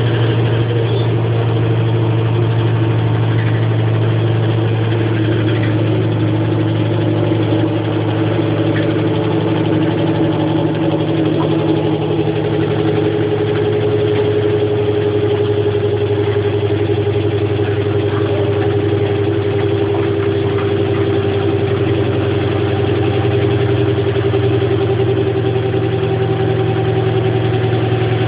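Electrolux LSE09 washing machine in its spin cycle, running with a loud, steady hum and a faint whine that shifts slowly in pitch. This is the abnormal noise the machine makes when spinning.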